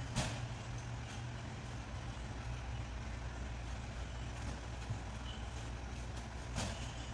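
A vehicle engine idling with a steady low hum, with a short clack just after the start and another knock near the end.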